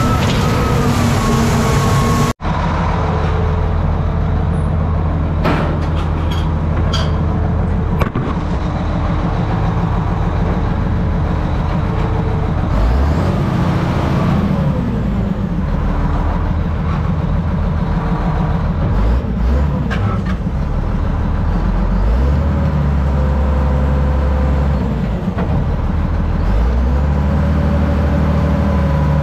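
Crawler bulldozer's diesel engine running hard, heard from inside its open mesh-caged operator's station, its pitch dipping and rising several times as the load changes. A few sharp metal clanks sound a few seconds in.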